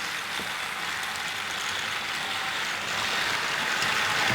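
Battery-powered motorized toy trains running on plastic track: a steady whir of small motors and wheels that grows slowly louder.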